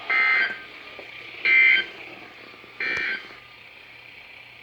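Emergency Alert System end-of-message code: three short buzzy digital data bursts about a second and a half apart, the signal that the alert broadcast is over. Faint radio hiss and hum run between the bursts.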